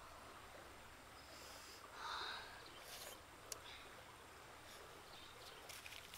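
Near silence: faint outdoor ambience, with a brief faint sound about two seconds in and a few soft clicks.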